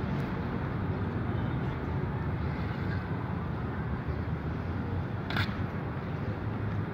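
Steady low rumble of city traffic, with a single sharp knock about five and a half seconds in.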